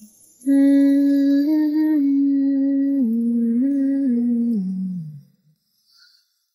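A woman humming a slow, gentle lullaby-like tune with no words, in long held notes that step up and down, ending on a falling note about five seconds in.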